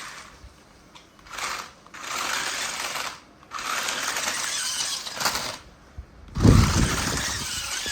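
Toy remote-control stunt car's small electric motor and gears whirring in short bursts, starting and stopping about five times. A louder burst with a low knock comes about six and a half seconds in.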